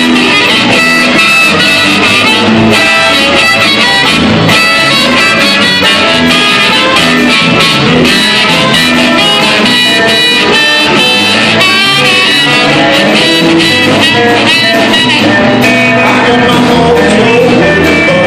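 Live blues band playing loudly: electric guitar, electric bass and drums, with a trumpet and a harmonica on the lead lines.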